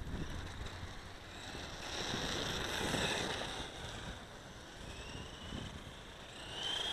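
Electric motor whine of a WLtoys P949 RC tractor driving across asphalt, rising in pitch near the end as it speeds up, with wind rumbling on the microphone.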